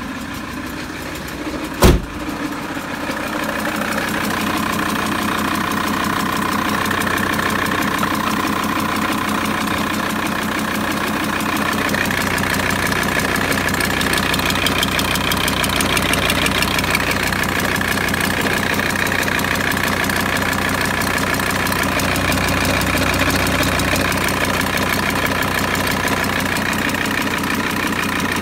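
Volkswagen T4 2.5 TDI five-cylinder turbodiesel idling steadily, heard close up in the engine bay. There is a single sharp knock about two seconds in, after which the engine sound gets louder and stays even.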